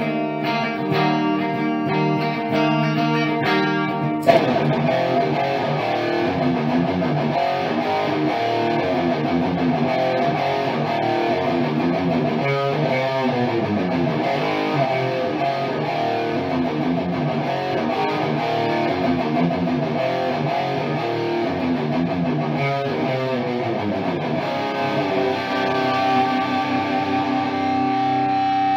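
Electric guitar (a 1993 PRS CE-3 with 57/08 pickups) played with distortion. Held chords give way, after a sharp accent about four seconds in, to a long run of quickly changing notes, then long held notes near the end.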